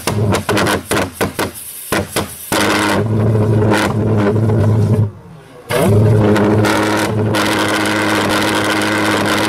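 Large homemade straight-tube valveless pulse jet engine, fed gasoline by an electric fuel pump, firing up. It pops and bangs irregularly as it lights, then catches about two and a half seconds in and runs as a steady low drone. Around five seconds in it cuts out for a moment, then relights and runs steadily again.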